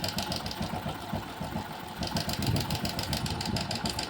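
Hero Passion Pro single-cylinder engine idling with a fast, regular metallic ticking from the timing chain. The ticking nearly drops away, then comes back about two seconds in. The mechanic blames the noise on a failed timing chain adjuster (tensioner) that no longer keeps the chain tight.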